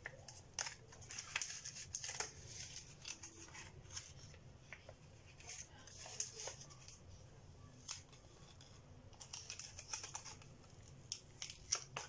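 Paper-craft handling: a scattered run of short, crisp rustles and clicks from paper strips, a cardboard tube and sticky tape being worked by hand.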